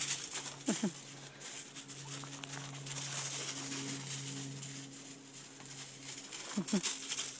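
Coyote pups scuffing and crunching over pea gravel, a patter of small gritty steps. A short whine drops sharply in pitch about a second in, and a couple more come near the end.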